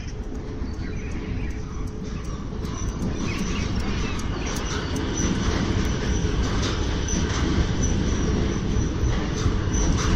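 Metro train running on rails, its rumble building steadily louder, with a thin high wheel squeal setting in about three seconds in.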